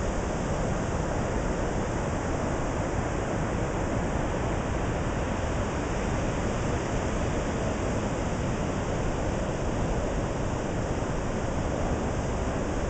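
Steady, even roar of ocean surf breaking on the beach, with no pauses or separate events.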